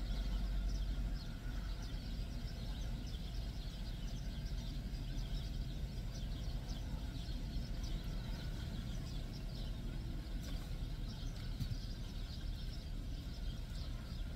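A person chewing a mouthful of chicken sandwich inside a car, with small scattered mouth clicks over a steady low rumble.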